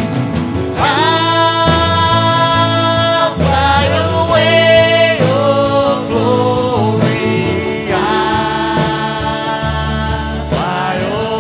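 Live worship band playing a Christian song, with several voices singing long held notes over acoustic guitar, drums and keyboard.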